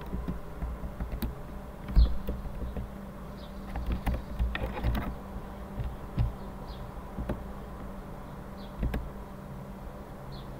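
Computer keyboard keys tapped in a few scattered bursts over a steady buzzing hum.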